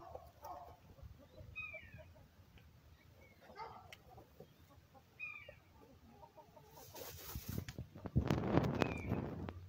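Hen dust bathing: soft clucks and a few short, high, falling chirps, then from about seven seconds in a louder rustling and scratching of dry dirt being kicked up and shaken through her feathers, strongest near the end.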